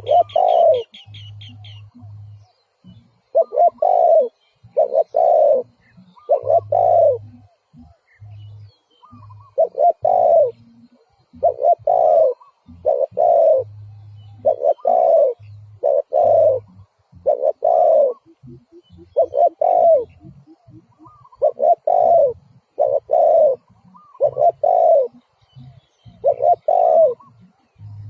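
Spotted dove cooing over and over in short phrases of two or three low coos, the calling used to lure wild doves to a decoy. A small bird's high rapid trill sounds briefly at the start.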